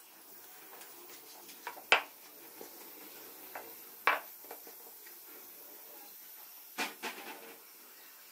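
A few sharp knocks and clatters of kitchen utensils on a wooden rolling board, as a rolling pin and a knife are set down and picked up. There are three main knocks about two seconds apart, the last a short cluster near the end, with quiet room tone between them.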